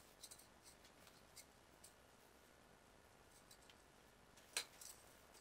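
Faint rustling and small clicks of hands working hair into a side ponytail with an elastic hair tie, with one sharper click about four and a half seconds in.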